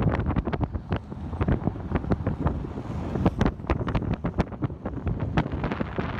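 Wind buffeting the microphone over the steady rumble of skateboard wheels rolling on rough asphalt. Irregular sharp clicks come as the wheels pass over cracks and grit.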